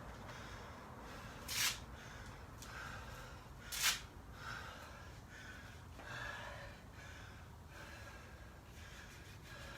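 A person breathing hard from exertion in a workout, with two sharp, forceful exhales a little over two seconds apart and softer panting breaths after them.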